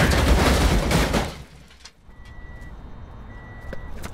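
A loud noisy car crash that dies away about a second and a half in. Then a car's warning chime beeps steadily about once a second, with a few faint clicks.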